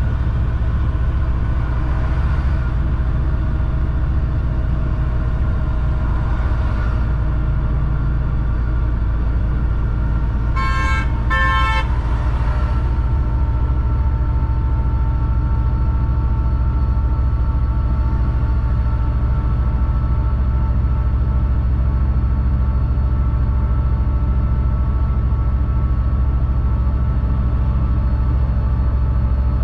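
Fully loaded Shacman X3000 heavy truck's engine running steadily, heard from inside the cab while driving. A horn gives two short toots about eleven seconds in.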